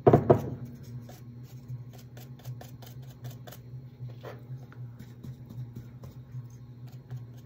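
Hands handling craft materials on a wooden desk: a loud, brief knock right at the start, then faint scattered taps and small rubbing sounds over a steady low hum.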